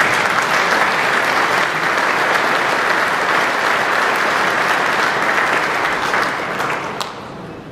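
Audience applauding, a steady clapping of many hands that fades near the end and stops about seven seconds in.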